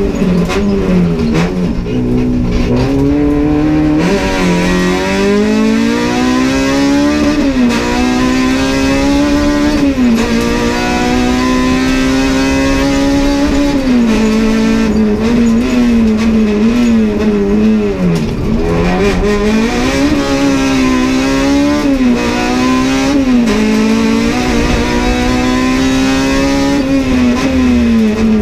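Honda Civic race car engine heard from inside the cabin, pulling hard with its pitch climbing and then dropping sharply at each gear change, over and over as the car accelerates and brakes along the circuit.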